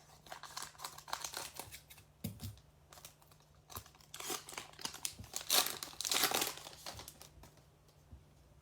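A Topps Archives baseball card pack's wrapper being torn open and crinkled, in irregular crackling bursts, loudest a little past halfway.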